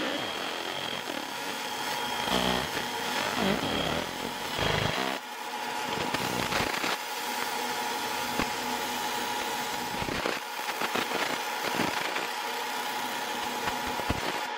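20 W EM Smart Basic 1 galvo fibre laser engraving scale lines into brass: a steady noisy buzz with a constant whine. Sweeping pitch glides run through the first few seconds, and a few sharp clicks come later.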